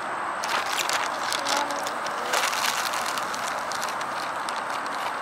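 Plastic snack containers and bags being packed away: irregular crackling, rustling and light clicks.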